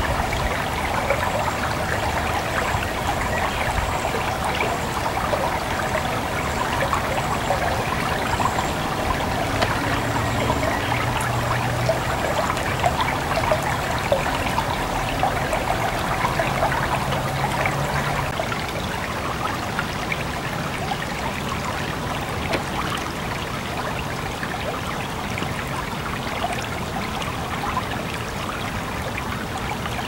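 Shallow clear brook babbling over rocks: a steady, even rush of water with constant small splashes and gurgles, a little quieter after about eighteen seconds.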